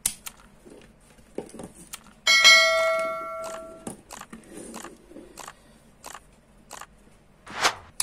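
A bell chime sound effect from a subscribe-button animation rings out once, starts sharply and fades over about a second and a half. Scattered light clicks and taps around it come from hands on the switch, breaker and bulb holders, with a sharper click near the end.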